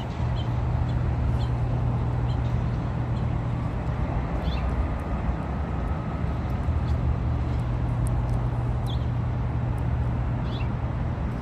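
Outdoor rail-yard ambience: a steady low hum over a wash of background noise, with short high chirps scattered through it every second or two.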